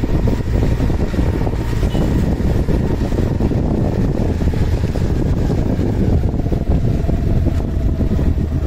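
Steady engine hum and wind rush of a motorcycle riding along a street, heard from the seat, with wind buffeting the microphone.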